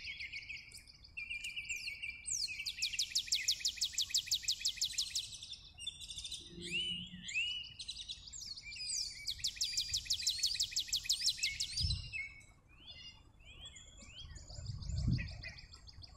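Songbirds singing: two long, rapid trills of repeated high notes, one about three seconds in and another about nine seconds in, with shorter chirps between them.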